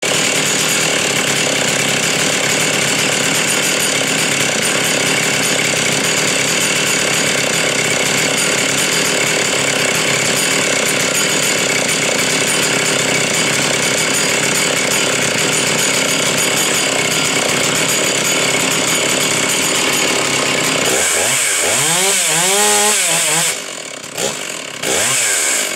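Stihl 046 Magnum chainsaw's two-stroke engine running steadily at high speed. Near the end it is revved up and down a few times, drops back, and is given two short throttle blips.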